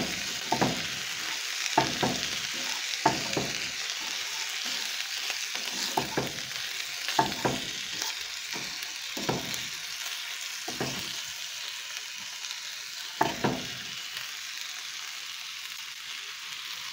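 Vegetables sizzling in a cast-iron skillet while being stirred, the utensil scraping and knocking against the pan every second or so. The knocks thin out in the second half.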